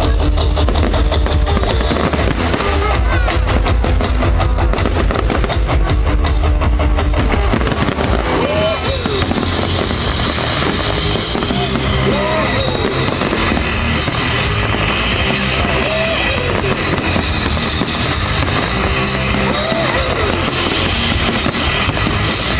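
Loud rock music played over a fireworks display's sound system, with fireworks going off. Dense cracks and heavy bass fill roughly the first eight seconds, then the music carries on in a smoother passage.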